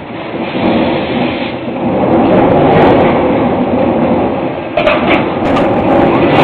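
Steady loud machinery noise from a robot-fed hot steel forging press cell, with a few short knocks about five seconds in.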